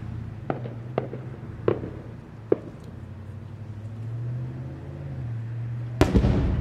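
Aerial firework shells bursting: four sharp cracks over the first two and a half seconds, then a heavy boom about six seconds in, the loudest sound.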